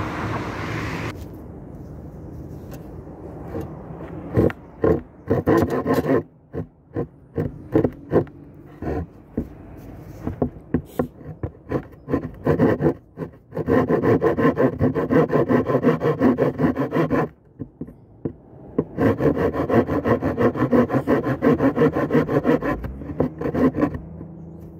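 Hand saw cutting through an old weathered wooden board: a few slow, separate starting strokes, then two long runs of fast back-and-forth sawing with a short pause between.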